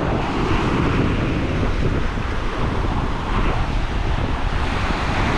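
Wind buffeting the microphone over the steady wash of surf breaking and running up a sandy beach.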